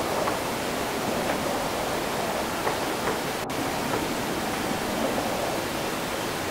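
After-rain city ambience: a steady, even wash of wind and wet outdoor noise, with a few faint ticks scattered through it.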